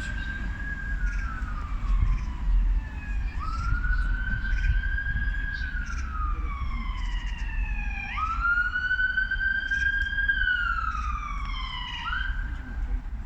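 An emergency vehicle's siren wails in slow cycles: each one climbs quickly, holds, then slides down. A new cycle starts about every four to five seconds, over a steady low rumble.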